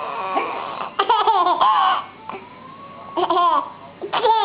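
A small child laughing in short, high-pitched bursts that glide up and down in pitch, about a second in, around three seconds in, and again near the end.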